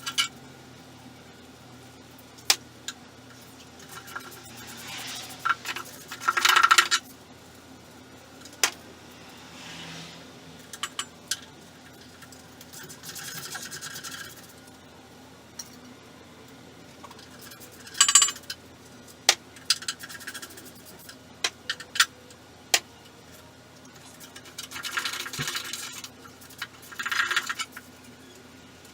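Metal parts and tools being handled: scattered sharp clinks and a few short scraping rattles over a steady low hum.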